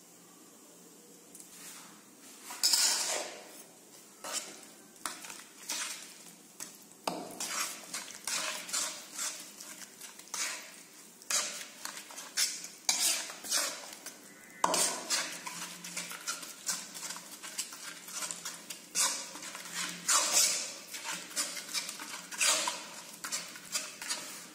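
Spatula stirring and scraping a thick spice paste around a metal wok, in many quick, irregular strokes against the pan. The stirring starts about two seconds in.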